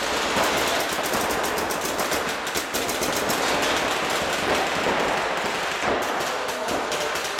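Paintball markers firing in rapid, continuous volleys, many shots a second.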